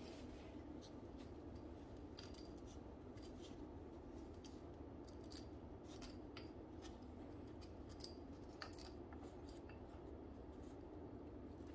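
Faint, irregular metallic clicks and ticks of a thin steel shift cable and a small aluminium cable pulley being handled and wound by hand, over a steady low hum.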